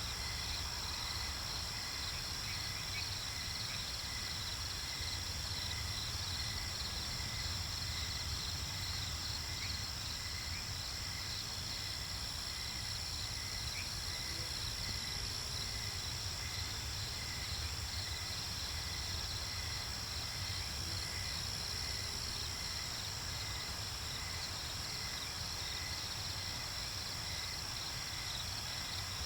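A steady chorus of insects, with several chirping in even pulses at different pitches over a constant high drone, and a low rumble underneath.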